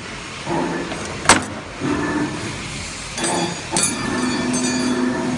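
CNC wire bending machine running through its cycle: servo motors whine in several short stop-start runs as the wire is fed and bent. There is a sharp click a little over a second in, another near four seconds, and a longer steady run of the motor near the end.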